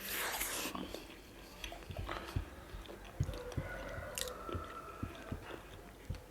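Close-miked chewing of soft food, with soft mouth clicks and smacks. A short breathy hiss comes at the start.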